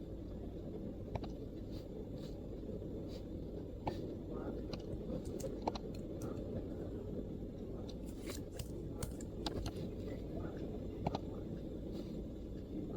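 MacBook laptop keyboard typing: sparse, irregular soft key clicks that bunch into a short burst about two-thirds of the way in, over a steady low background rumble.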